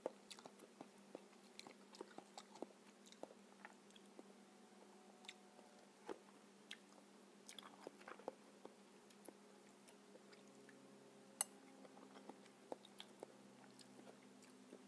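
Close-up chewing of soft, ripe papaya flesh: a run of small wet mouth clicks and smacks, mixed with a metal spoon scooping flesh from the papaya half. One sharper click stands out about two-thirds of the way through.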